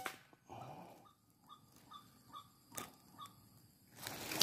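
A single PCP air rifle shot cracks at the very start, then quiet with faint, evenly repeated chirping behind it and one small click near three seconds in. Rustling and handling noise rises near the end as the rifle is swung through the vegetation.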